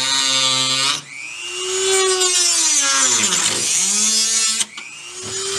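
Power tool cutting through a pickup's bed and its bed liner, running with a harsh high hiss. Its motor pitch sags as it bogs under load, lowest about three and a half seconds in, then climbs back up.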